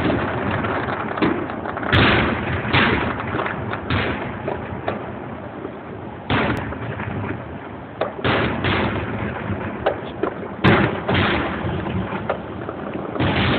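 Fireworks going off: a string of sharp bangs at irregular intervals, some spaced close together, over a constant background rumble of other bursts.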